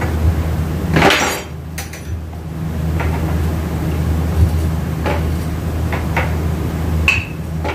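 Metal hand tools clinking and knocking on automatic transmission parts: about five short, sharp knocks spread over several seconds, the one near the end ringing briefly, over a steady low hum.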